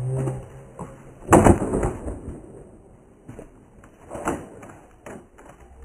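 A skateboard and rider slamming onto concrete about a second and a half in after a jump down a stair set, the board clattering briefly; a bail that leaves the skater hurting his ankle. A few softer knocks follow.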